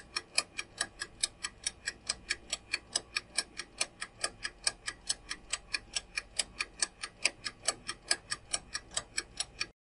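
Countdown-timer clock ticking sound effect: an even tick-tock of about five ticks a second, alternating louder and softer, that cuts off suddenly just before the end as the answer time runs out.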